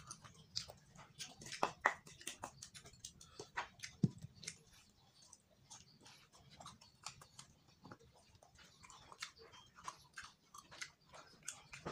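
A man chewing and smacking his lips as he eats rice by hand: many short, irregular wet clicks.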